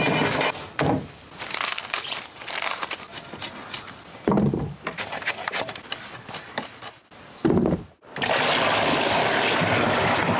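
Fresh bamboo shoots dropping onto a woven bamboo tray with dull thumps, and crackling, rustling husks being peeled, with a single short bird chirp about two seconds in. From about eight seconds in, a steady rush of water pours into a wooden tub.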